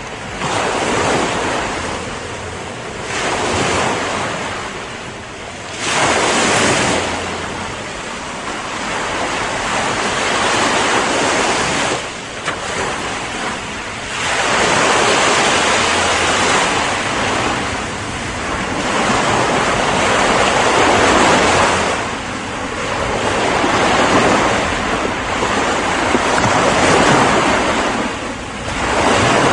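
Ocean surf: waves breaking and washing in, a steady rushing hiss that swells and falls back every few seconds.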